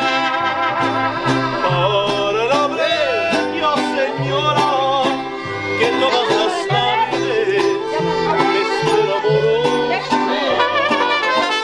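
Mariachi band playing live, with strummed vihuela and the deep bass of a guitarrón under the melody.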